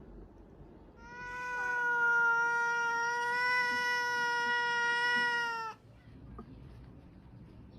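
A cat giving one long yowl, held at a steady pitch for about four and a half seconds and cut off suddenly.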